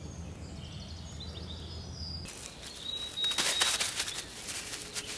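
Woodland birds chirping and whistling over a steady low hum. About two seconds in, the hum stops and light crackling rustles are heard along with the birds.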